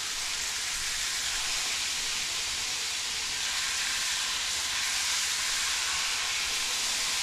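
Floured cube steak sizzling steadily as it browns in a hot skillet of oil, a little louder in the second half.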